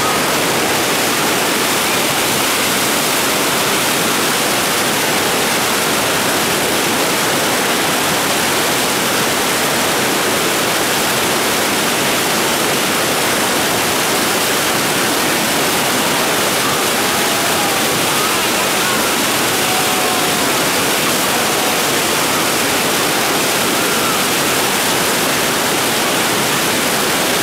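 River rapids rushing steadily: a loud, even wash of whitewater.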